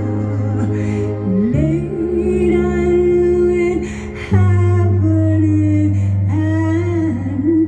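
Female gospel singer's voice on a vinyl record, holding and bending long notes without clear words, over sustained low accompaniment chords that change twice.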